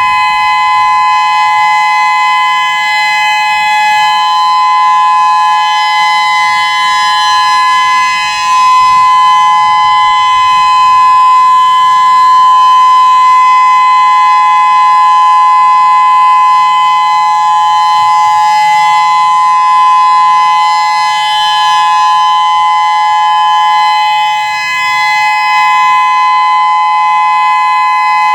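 Whelen WPS-3016 electronic outdoor warning siren sounding a steady alert tone during its monthly test: two held pitches close together, swelling and fading as its rotating speaker array turns, with dips about eight seconds in and again about twenty-five seconds in.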